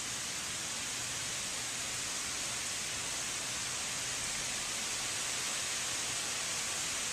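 Steady rain falling, a constant hiss that grows slightly louder over the few seconds.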